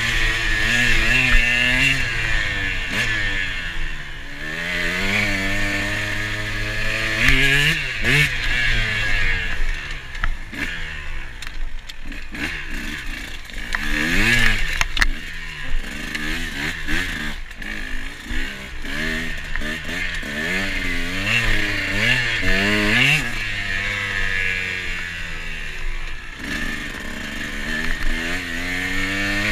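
KTM 125 two-stroke single-cylinder dirt bike engine revving hard and falling back over and over, its pitch climbing as it accelerates and dropping at each shift or throttle-off. For a few seconds around the middle it runs lower and quieter, then snaps back up to high revs.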